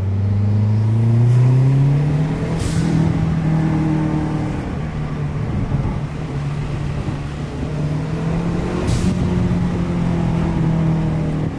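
Mazdaspeed3's turbocharged 2.3-litre four-cylinder pulling hard under acceleration, its pitch climbing and holding as the revs rise. Two brief sharp hisses come about 3 and 9 seconds in: the newly fitted Turbosmart blow-off valve venting.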